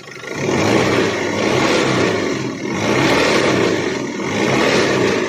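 Mercedes Sprinter 2.2 OM611 diesel engine revved up about three times, rising and easing off. It makes a harsh noise that the mechanic suspects comes from the gearbox or flywheel.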